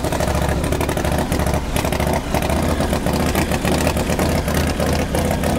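Orange County Chopper's motorcycle engine running loud and steady, just after a faulty throttle position sensor that had been causing a high idle was fixed.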